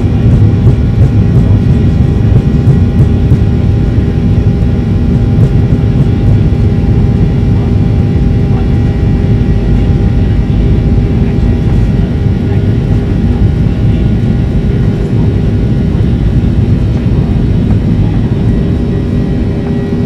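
Cabin-side drone of a Boeing 737-800's CFM56-7B turbofan engines running at a steady setting: a dense low rumble with several steady whining tones on top, holding level without spooling up or down.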